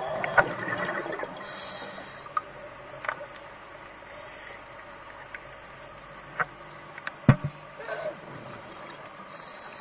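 Underwater ambience picked up by a diving camera: a steady muffled hiss with scattered sharp clicks and knocks, a rustling stretch in the first second, and the loudest knock a low thump about seven seconds in.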